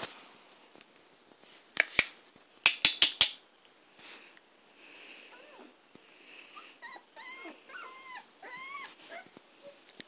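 Greater Swiss Mountain Dogs play-wrestling: a few sharp clicks and knocks about two to three seconds in, then a run of high whines, each call arching up and down in pitch, between about seven and nine seconds in.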